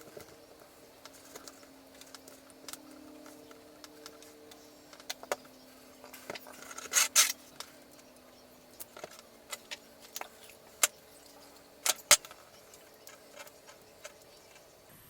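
Small metal clicks and rattles of a custom-pinned challenge lock being taken apart by hand, its parts clinking as they are handled. The clicks are scattered, with a short burst of louder rattling about seven seconds in and two sharp clicks about twelve seconds in.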